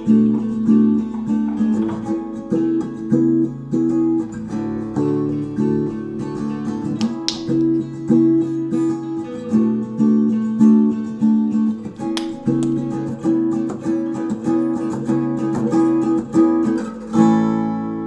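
Background music: an acoustic guitar piece of plucked notes in a steady rhythm, with a final chord struck near the end that rings out.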